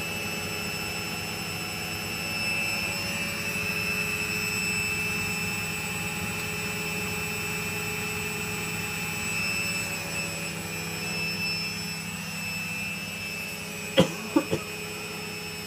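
Servis Slimline 308S washing machine spinning at speed, its motor giving a steady high whine over a low hum, running smooth and stable. A few short sharp sounds come near the end.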